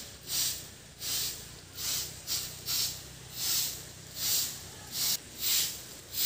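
Short hand broom sweeping a bare earth yard: a steady run of brisk swishes, about ten strokes at roughly one every 0.7 seconds.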